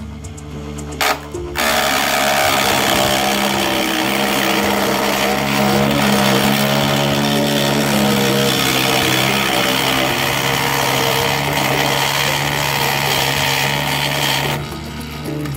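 Mini jeweler's lathe spinning a poplar dowel while a small hand turning tool cuts into it: a steady hiss of wood being shaved over the motor's whir. The cutting starts about a second and a half in and stops about a second before the end.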